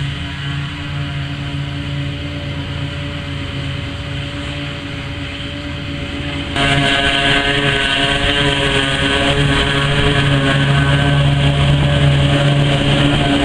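John Deere forage harvester and the tractor beside it running steadily while chopping grass: a continuous engine and chopper drone. About six and a half seconds in it jumps suddenly louder and brighter.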